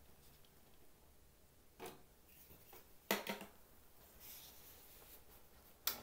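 Faint handling sounds of a USB flash drive being pulled from a digital mixing console and a hand moving over the console: a sharp click with a couple of quick follow-ups about three seconds in, light rubbing, and another sharp click near the end.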